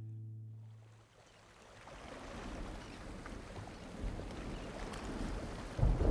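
A held music chord fades out within the first second. Then a steady rush of wind and sea water builds, with deep low rumbles about four seconds in and again near the end.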